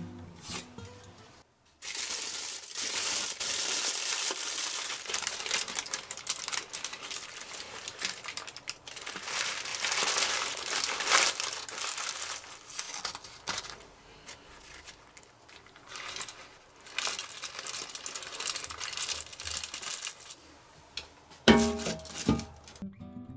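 Crinkling, rustling handling noise, irregular and crackly, running for most of the stretch; guitar music comes back briefly near the end.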